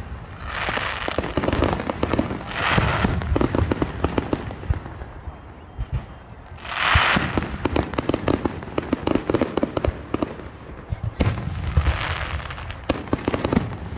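Aerial fireworks display: sharp shell bangs with rushes of dense crackling, about a second long each, coming several times.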